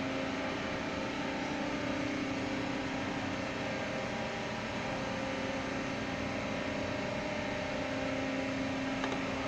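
Steady drone of running plant machinery with a constant low hum, unchanging throughout.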